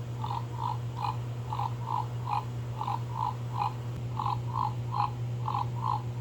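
Battery-powered pig-shaped sound-effect drinking straw playing its electronic oinking sound: short beeping grunts in quick groups of three, each group repeating about every second and a quarter.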